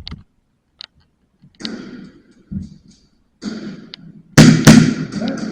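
A run of sharp clicks and knocks with rustling between them, then a loud cluster of knocks and clatter about four and a half seconds in.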